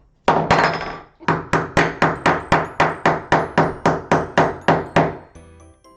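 A small hammer drives a nail into wood with quick, even strikes, about four a second, and stops about five seconds in.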